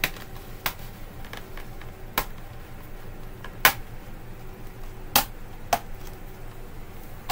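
Sharp clicks and knocks of an HP Pavilion 15 laptop's case being handled and turned over on a work mat, about six of them at uneven intervals, the loudest about halfway through.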